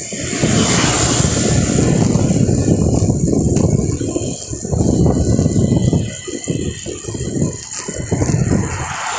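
Wind buffeting the microphone of a moving rider, a loud low rumble that swells and drops out irregularly, mixed with road and rattle noise.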